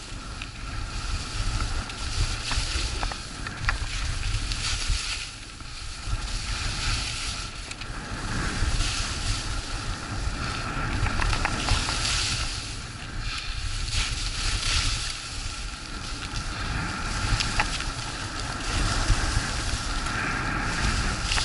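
Skis hissing and scraping across packed, chopped-up snow in a run of linked turns, the hiss swelling with each turn. Wind buffets the microphone throughout.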